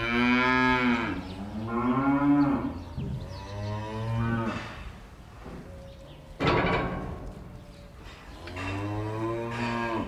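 Cattle mooing: four long moos. A sudden harsh noise breaks in about six and a half seconds in.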